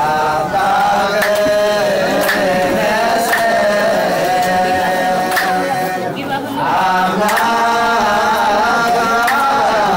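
A song: a voice singing long, wavering notes over instrumental backing, with a sharp beat about once a second and a short break in the voice around the middle.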